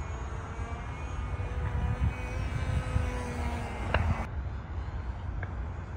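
Small two-stroke O.S. 15 LA glow engine of a balsa RC plane droning steadily high overhead, a thin, distant tone over a low rumble, with one sharp click about four seconds in.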